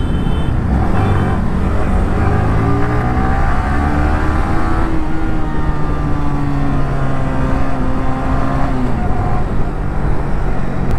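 Sport motorcycle engine pulling hard, its tone rising over the first few seconds, then holding and slowly sagging before dropping away near the end as the throttle comes off. A steady rush of wind lies underneath.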